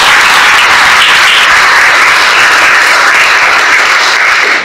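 A roomful of people applauding, loud and steady.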